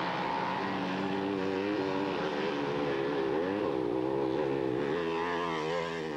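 Motocross bike engines revving, the pitch rising and falling again and again as the riders accelerate and back off.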